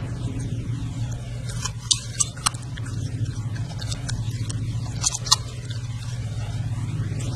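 A puppy chewing a piece of carrot: a few short sharp crunches and clicks, in two clusters about two seconds and five seconds in, over a steady low hum.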